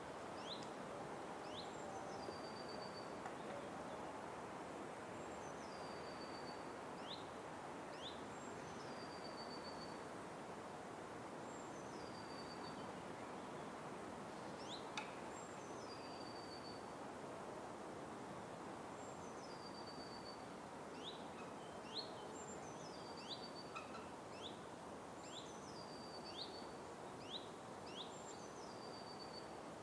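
Forest birdsong over a steady background hiss: one bird repeats a short high phrase every two to three seconds, a note that drops into a quick trill, while other short, sharp rising chirps come and go.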